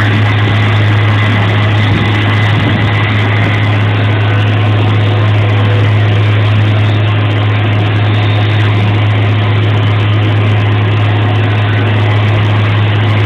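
CNC milling machine running steadily, a constant low hum under an even machining noise.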